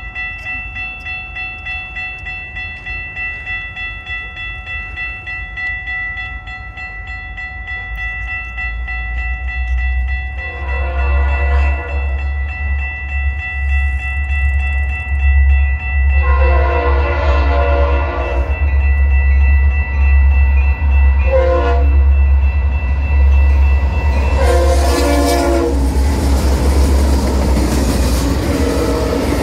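A BNSF GP60 diesel locomotive blows its Leslie RS3L three-chime air horn for a grade crossing as it approaches. The pattern is long, long, short, long: the standard crossing signal. Before that, a crossing bell dings steadily while the engine's low rumble grows. The last blast runs into the roar and clatter of the locomotive and freight cars passing close by near the end.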